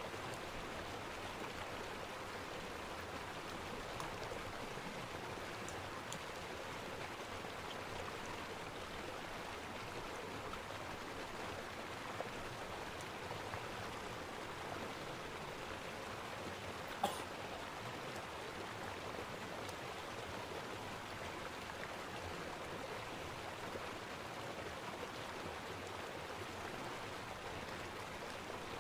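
A steady, even hiss-like background noise, with a few faint clicks scattered through it and one sharper click about seventeen seconds in.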